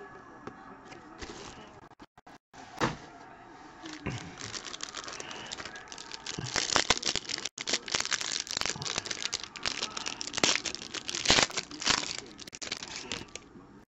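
Plastic wrapper of a football trading card pack being torn open and crinkled by hand, a dense run of crackling and rustling through most of the clip, after a few lighter handling sounds and a single click from the emptied cardboard box.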